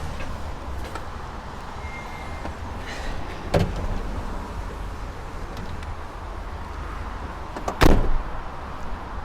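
Jump-starter clamps being reseated on the van's battery terminals: two sharp knocks, about three and a half seconds in and a louder one near eight seconds, over a steady low rumble.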